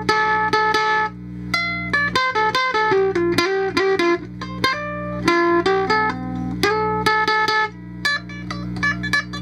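Electro-acoustic ukulele played through an amplifier and a cheap distortion pedal: a quick melodic run of picked single notes, a little out of tune, over a steady low hum.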